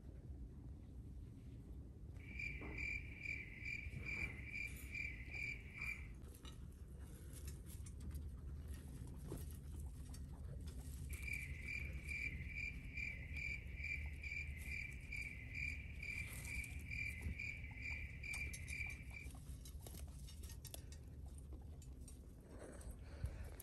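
Guinea pigs chewing dried vegetables and hay: a scatter of small crunching clicks. Over it comes a steady high chirping of about two or three even pulses a second, in two runs: one of about four seconds starting two seconds in, and a longer one of about eight seconds in the middle.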